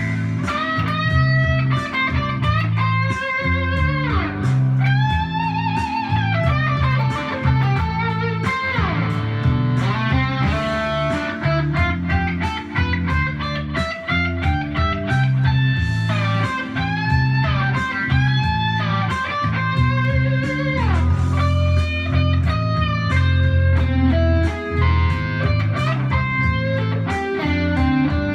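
Electric guitar played through a Roland Cube 60 amp: a blues lead line with string bends, over a repeating low bass part.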